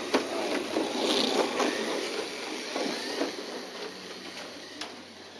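Kyosho dNaNo 1/32-scale RC cars running past, their small electric motors and gears whirring, with a few light clicks, fading as the cars move away.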